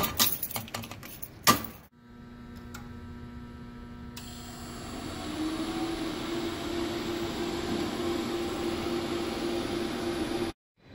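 Metal clicks and clinks of a lockout padlock being taken off a disconnect handle, one sharp click standing out. Then a steady electrical hum with several steady tones and a high whine joining partway through, from a Yaskawa Varispeed P7 variable frequency drive running the cooling tower fan at 20%.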